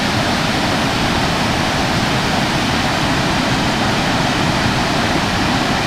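Steady rush of a fast-flowing creek running high with water.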